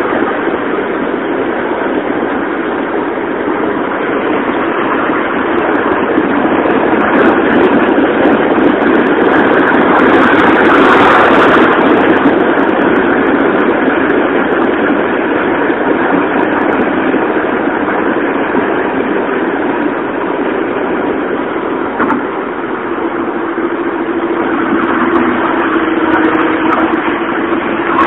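Steady road and engine noise heard from inside a moving car, growing louder about ten seconds in; a low steady hum joins near the end.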